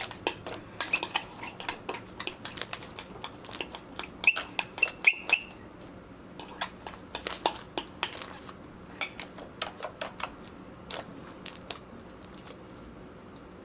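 Spoon stirring slime in a bowl, clinking and scraping against the bowl in quick irregular taps. The taps are loudest about four to five seconds in and thin out near the end.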